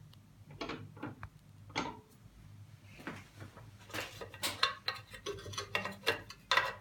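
Irregular clinks and knocks of metal tools and parts being handled, over a faint low steady hum.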